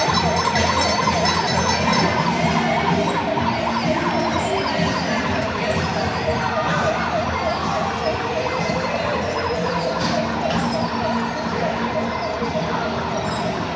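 Electronic siren of a kid-sized fire truck sounding a fast, wavering warble as the truck drives along.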